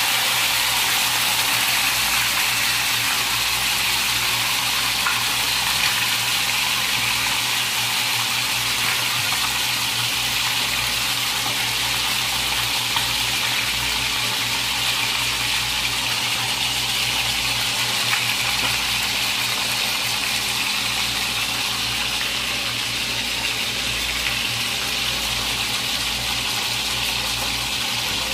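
A whole marinated chicken frying in hot oil in a wok, being browned: a steady sizzle with a steady low hum underneath.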